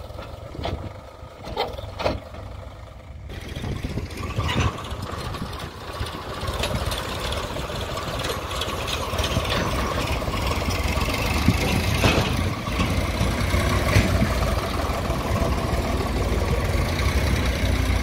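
Farm tractor's diesel engine running, pulling a trolley loaded with soil. There are a few sharp knocks in the first three seconds, then the engine noise gets louder and stays steady.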